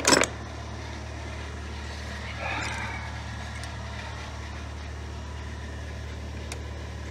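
Metal tools clanking once, sharply, as a wrench is fetched from the tool box, then a softer rattle or scrape about two and a half seconds later, over a steady low hum.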